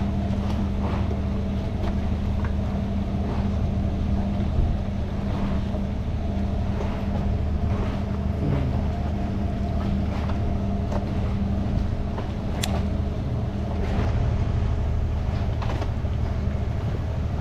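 Boat engine idling, a steady low hum that holds even throughout, with a few faint sharp clicks over it.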